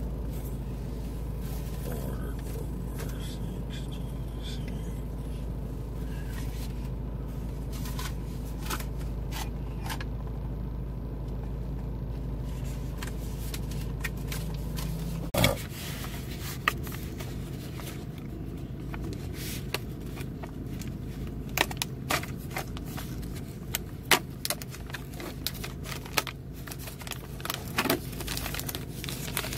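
Steady low hum inside a car, its deepest rumble cutting off suddenly with a click about halfway through. Scattered clicks and small scrapes follow as a plastic food tray is handled.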